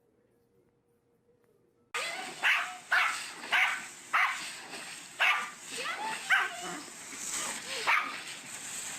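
Near silence, then about two seconds in a dog starts barking: a run of about seven sharp barks at uneven intervals.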